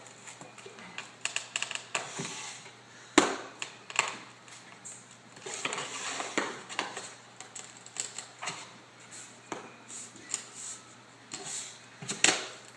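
Irregular clicks, taps and scrapes of a hand tool levering engineered hardwood flooring boards tight together, with a sharp knock about three seconds in.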